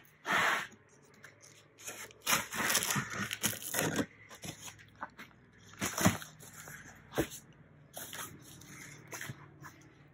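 Cardboard shipping box being opened by hand: the slit packing tape pulling apart and the cardboard flaps rustling and scraping in short, irregular bursts, with a few sharp clicks.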